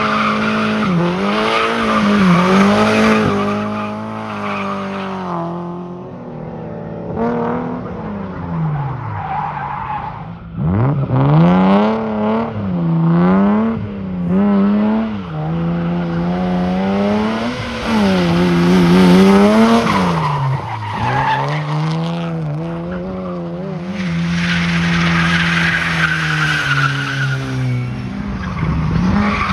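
Rally cars' engines revving up and dropping back again and again as they accelerate, shift and brake round a tight course, with tyres squealing on the concrete near the start, in the middle and near the end.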